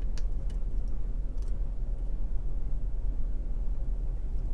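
A few faint, sharp clicks of a hook pick working the pins inside a lock, over a steady low hum.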